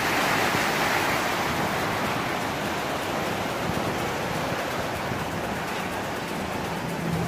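Fast, turbulent water rushing steadily out through the concrete gate bays of a barrage's canal head regulator, churning white. The sound eases slightly toward the end.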